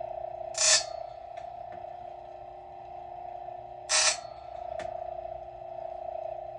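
Silvey raker grinder running with a steady motor hum, its stone briefly grinding a chainsaw chain's rakers (depth gauges) to lower them: two short, loud grinding hisses, about a second in and about four seconds in, with light clicks between.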